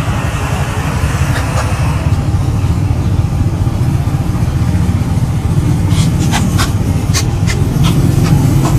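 Engine of the vehicle carrying the camera running steadily as it drives along, a low drone with road noise. A quick series of sharp clicks or knocks comes about six seconds in.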